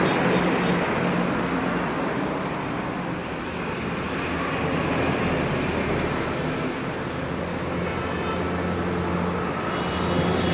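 Steady road-traffic noise with a low hum underneath.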